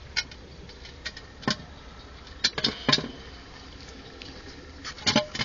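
Electric vacuum pump running with a steady low hum as it draws the oil out of the compressor into the cylinder. Sharp clicks and knocks come over it, a cluster about halfway through and more near the end.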